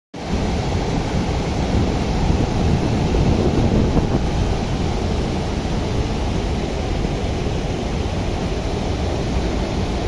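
Water spilling over a low concrete river weir, a steady deep rushing.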